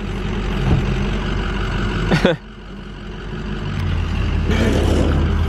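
A motor vehicle's engine running, its low rumble growing louder from about three seconds in. A brief voice-like whoop rises and falls about two seconds in.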